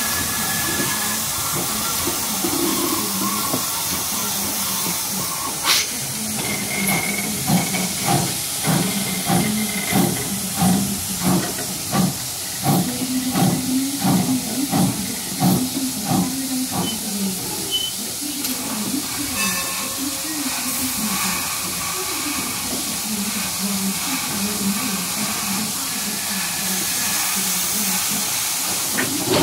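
Steam locomotive letting off a steady hiss of steam, with a sharp clank about six seconds in. This is followed by a run of rhythmic beats, about two a second, that fades out about two-thirds of the way through.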